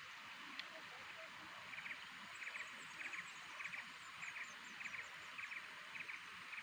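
A small animal calling in a rice paddy: short groups of three or four quick clicks, repeated about every half second, with a fainter high twittering and a steady hiss under it.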